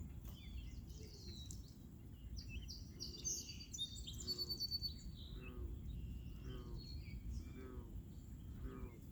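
Birds chirping over a steady low rumble of outdoor background noise, with a faint sound repeating about once a second through the second half.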